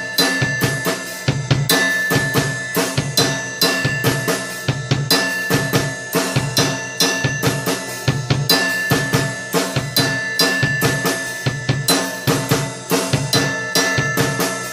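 Acoustic drum kit playing a steady bossa nova groove, with evenly repeating bass drum thuds under snare hits, and cymbals ringing over them.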